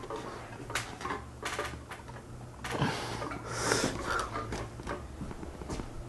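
Con Tech 36-inch ceiling fan being stopped by hand: a steady low electric motor hum with a few knocks and rustles as the turning fan is grabbed and handled.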